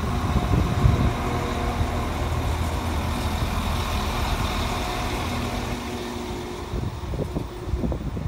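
Northern Class 195 diesel multiple unit pulling out past the platform, its underfloor diesel engines droning steadily with wheel and rail noise. The sound eases off over the last couple of seconds as the final carriage passes.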